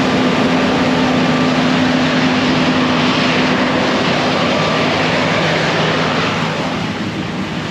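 Heavy farm machine's diesel engine running steadily, heard from inside the cab, with a steady hum that fades out partway through; the sound eases off a little near the end.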